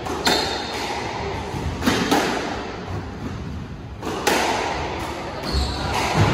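Squash rally: the ball struck by rackets and hitting the court walls in sharp thwacks about every second or two, ringing briefly in the enclosed court.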